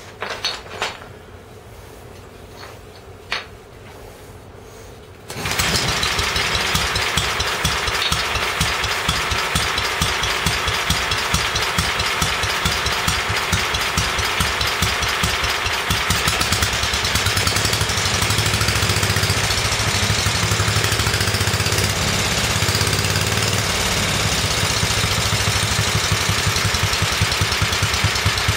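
Single-cylinder Bernard W39 engine of a 1958 Staub PPU, fitted with a new piston. It sits stopped with a few faint clicks, then starts about five seconds in and runs steadily with a fast, even firing rhythm. From about halfway its note grows fuller and lower.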